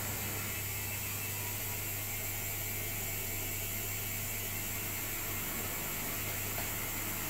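Bosch WAE20462TR front-loading washing machine running in its final spin stage: a steady low hum over an even hiss, with no change in pitch.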